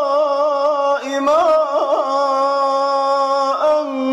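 Solo male voice reciting the Quran in melodic tajweed, in the Iraqi (Baghdadi) style. It holds a long note with a slight regular waver, runs through quick ornamental turns just after a second in, and then settles into another long steady note.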